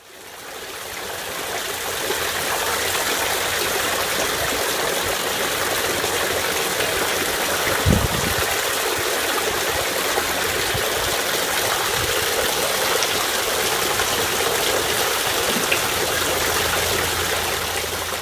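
Wall fountain: thin streams of water falling down a stone wall and splashing steadily into a basin below. It fades in over the first couple of seconds and fades out near the end, with a brief low bump about eight seconds in.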